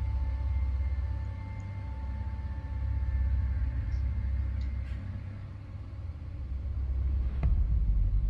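A low rumble that swells and fades, with a faint steady high tone over the first few seconds and a single sharp click about seven and a half seconds in.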